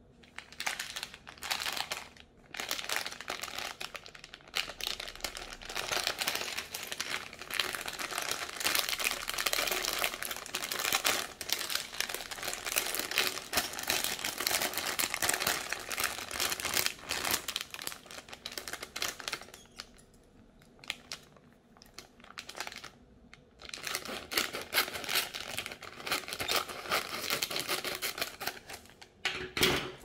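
Thin plastic LEGO polybag crinkling as it is handled and squeezed, in irregular bursts that ease off briefly around two-thirds of the way through. Near the end, a sharp snip as scissors cut the sealed top strip off the bag.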